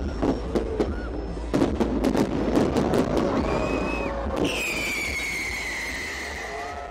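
Fireworks going off: a rapid, irregular run of bangs and crackles over crowd noise, then about four and a half seconds in the bangs stop and a long whistle, falling slightly in pitch, carries on to the end.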